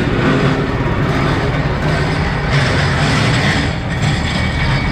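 Small single-cylinder gas engine of a long-shaft mud motor running steadily, spinning its propeller in the air. It is running on a freshly fitted spark plug, with the old carburetor still on.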